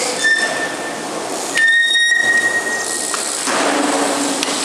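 A high, steady squeal sounds twice, briefly and then for over a second, over a steady hiss.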